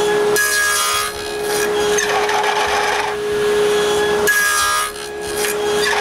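Power woodworking tool running steadily while cutting finger joints in a board on a jig. Two cutting passes come about four seconds apart, each a burst of cutting noise lasting about half a second over the machine's steady hum.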